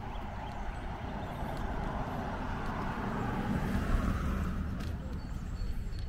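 A car passing on a wet street: its tyre hiss builds to a peak about four seconds in, then fades.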